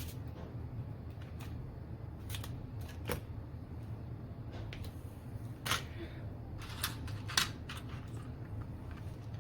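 Scattered light clicks and taps of small electronic parts being handled on a workbench, about half a dozen, the sharpest about two-thirds of the way in, over a steady low hum.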